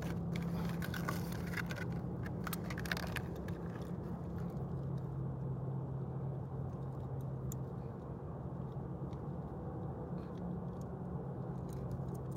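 Plastic blister packaging of a Hot Wheels die-cast car crinkling and crackling as it is opened for the first three seconds or so, then a few scattered small clicks as the toy car is handled. A steady low hum runs underneath.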